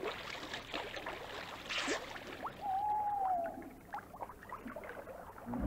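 Faint cartoon water sound effects after a splash: water sloshing and drops plinking as short rising chirps, with a soft rush about two seconds in. About halfway through there is a single held whistle-like tone that bends slightly.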